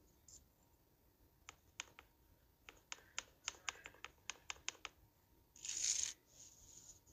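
Fingernails tapping on a phone's touchscreen close to its microphone: a run of about fourteen quick, sharp taps over three and a half seconds, then a short rustle about six seconds in.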